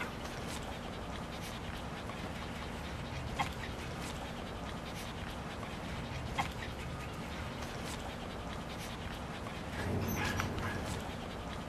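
Small dogs in a group: a couple of single short yips a few seconds apart, then a few quick barks near the end, over a steady low background.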